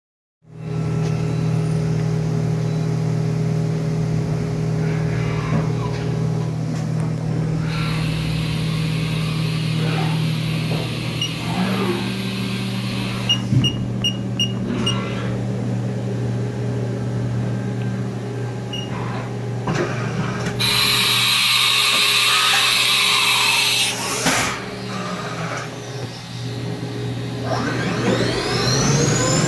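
1998 Haas VF-2 CNC vertical machining center powered up with a steady hum. Its control keypad beeps several times in quick succession about halfway through. A loud hiss runs for a few seconds, and near the end the spindle spins up with a whine that rises in pitch.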